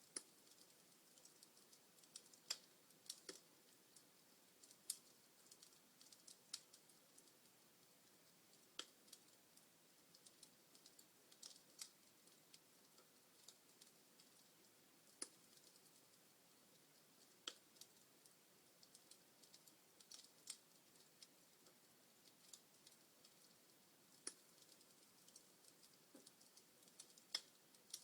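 Wood fire crackling in a fireplace: irregular sharp snaps and pops from the burning logs, some louder than others, over a faint steady hiss.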